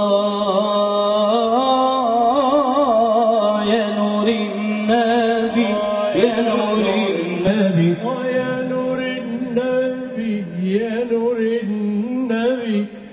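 Male voices chanting an Arabic devotional song: a wavering, heavily ornamented melody line over a steadier low voice.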